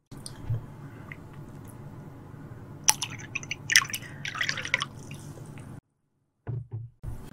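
Beer poured from a green glass bottle into a small drinking glass, splashing and gurgling for about a second around the middle, just after a sharp clink of glass. This is the beer going into soju to mix somaek.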